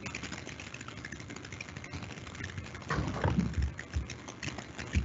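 Typing and clicking on a computer keyboard: a run of light, irregular key clicks, with a few stronger soft thuds about three seconds in.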